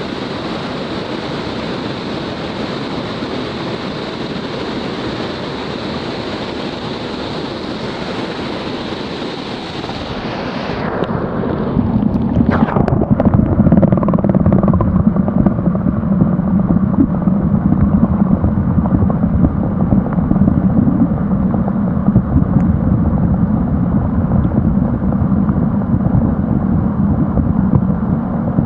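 Mountain river rushing over rocks, a steady full hiss of water. About a third of the way in the sound turns duller and louder, with a low rumble taking over.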